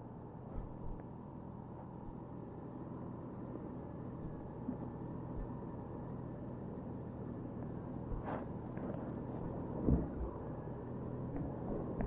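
Motorcycle engine running with a steady low hum that slowly grows louder. There is a short sharp sound about eight seconds in and a low thump about two seconds later.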